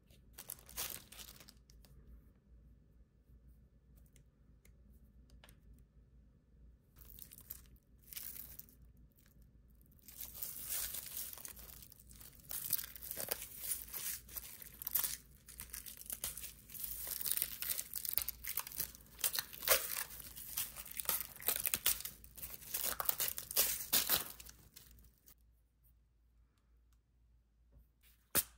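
Clear plastic packaging crinkling as beading supplies are handled and unwrapped: a few short rustles at first, then almost continuous crinkling for about fourteen seconds before it stops. A single sharp click near the end.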